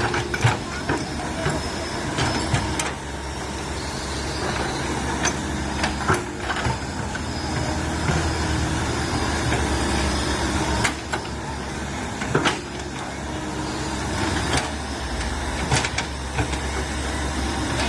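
Komatsu PC130 excavator's diesel engine running steadily while it works, with occasional sharp knocks and clicks standing out above it.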